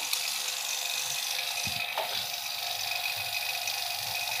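Refrigeration vacuum pump running steadily with a constant hum and hiss, near the end of evacuating an air conditioner, the gauge manifold's low-side valve just closed off. A light knock about two seconds in.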